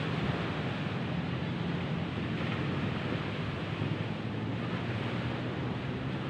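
Steady rushing noise of wind and surf at the seashore.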